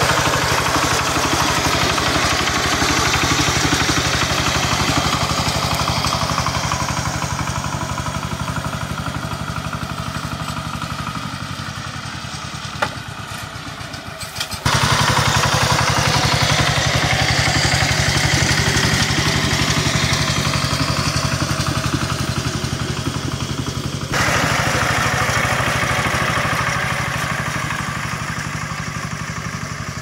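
Single-cylinder diesel engine of a Kentavr MB 1010DE-6 walk-behind tractor running steadily under load while it pulls a rake attachment along the potato rows. The loudness steps up suddenly twice, about halfway through and again later.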